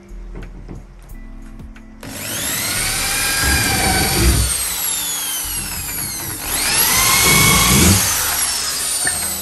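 Corded electric drill running in two bursts, the first starting about two seconds in and the second after six seconds. Each time the motor whine rises to speed and then drops as the bit works into the particleboard panel of a cabinet.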